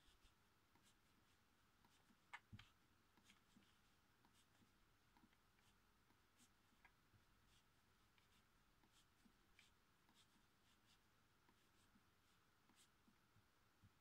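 Near silence with faint, scattered computer mouse clicks, two louder ones close together about two and a half seconds in.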